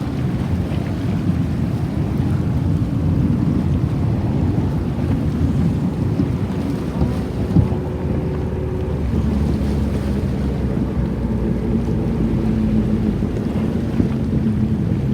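Wind buffeting the microphone in a steady low rumble, with a single short thump about halfway through.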